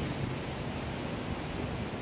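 Gusty wind buffeting the microphone: a steady, fluttering low rumble with hiss above it.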